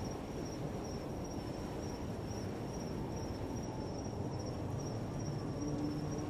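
Night ambience: a steady, high, slightly pulsing cricket trill over a low rumble, with a faint low tone coming in near the end.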